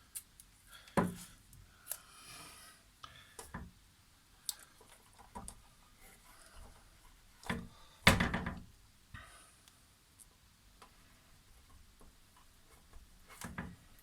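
Hands working on an opened LCD TV's backlight assembly while adhesive tape is pressed down and parts are set in place: scattered taps, clicks and rustling, with two louder knocks, about a second in and about eight seconds in.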